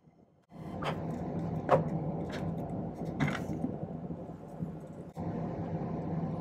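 A few light metallic clicks and scrapes of tweezers handling small silver pieces on a soldering board, over a steady background hum that comes in suddenly about half a second in.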